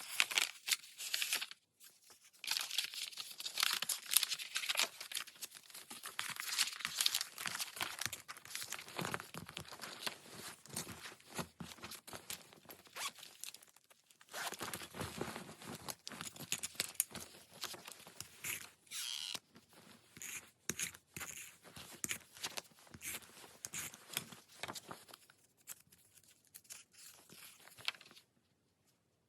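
Paper and sticker sheets rustling and crinkling as they are handled, with tearing sounds, in irregular bursts with a couple of short pauses.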